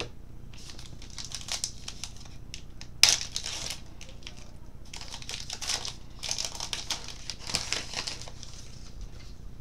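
Baseball card pack wrapper being torn open and crinkled by hand, in irregular crackly bursts, with a sharp tear about three seconds in.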